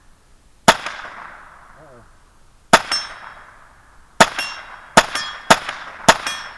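.22 rimfire shots hitting a small steel target, each crack followed by the steel ringing as it fades. There are six hits: three spaced one and a half to two seconds apart, then three quicker ones about half a second apart near the end.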